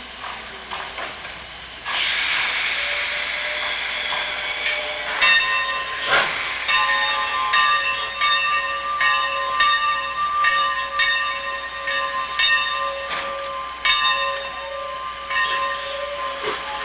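Steam locomotive No. 28 venting a loud hiss of steam that starts suddenly about two seconds in. From about five seconds a steady high ringing tone runs alongside it, broken by regular sharp beats roughly every three-quarters of a second as the engine works.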